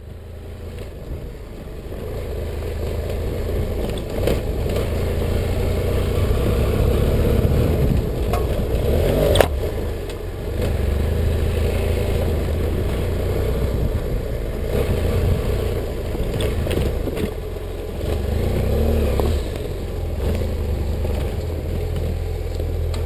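BMW F800GS parallel-twin engine running as the motorcycle rides over a rough dirt forest track, with scattered knocks and scrapes from the track and a sharp knock about nine seconds in. The sound fades in over the first two to three seconds.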